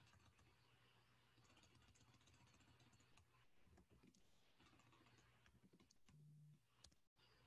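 Near silence: faint room tone with scattered faint clicks of a computer keyboard and mouse.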